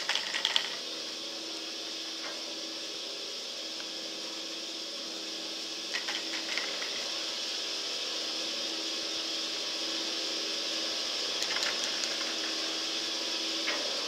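Steady mechanical hum with hiss from a running drag lift (T-bar ski lift), with a few short clusters of clicks and rattles: at the start, about six seconds in, and twice near the end.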